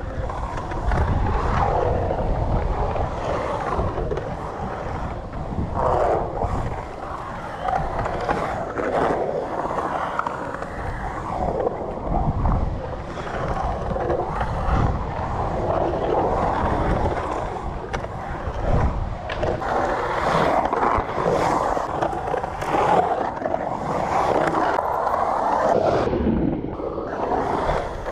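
Skateboard wheels rolling on a concrete pool, a continuous rolling roar that swells and fades as the rider carves up and down the walls, with a few sharp clacks.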